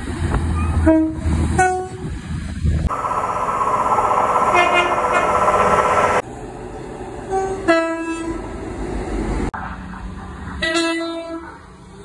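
British passenger trains sounding two-tone horns, short high-then-low blasts from several different trains one after another. Each comes over rail running noise that changes abruptly between clips, loudest as a train passes in the middle.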